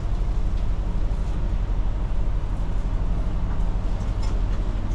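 Vehicle engine idling: a steady low rumble, with a few faint clicks over it.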